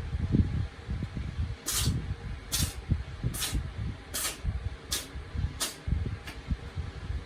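A cat sneezing in a fit: seven quick, hissy sneezes about one every 0.8 seconds, the last one fainter. Low rumbling thumps run underneath.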